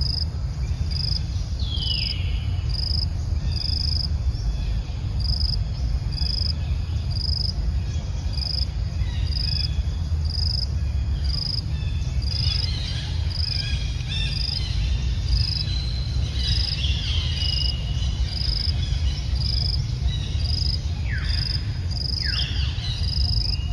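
Insects chirping in a steady high pulse, about two chirps a second, over a low rumble. A few short high calls that fall in pitch cut in, once near the start and twice near the end.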